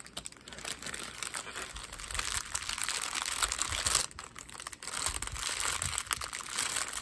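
Clear plastic packaging crinkling and rustling as hands slide small plastic bags of diamond painting drills back into it, with a brief lull about four seconds in.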